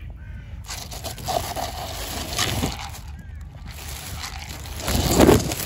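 Thin plastic carrier bag rustling and crinkling as a hand rummages through it, with louder swells about two and a half seconds in and again near the end.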